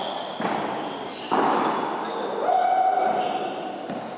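Padel ball knocked back and forth in a rally: a few sharp knocks of ball on paddle and court, echoing around the enclosed court.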